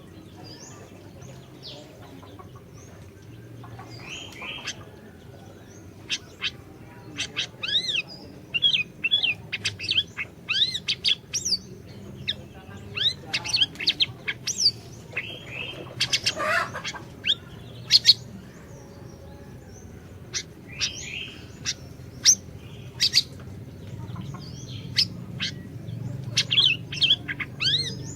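Siri-siri bird calling in quick, sharp chirps and short sweeping notes. The calls are sparse at first, then from about six seconds in come in busy, repeated runs, with a steady low hum underneath.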